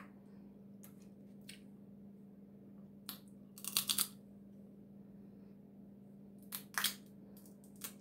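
Dungeness crab shell cracked and picked apart by hand, making short crunching, crackling snaps in irregular bursts, loudest in a cluster about four seconds in. A steady low hum runs underneath.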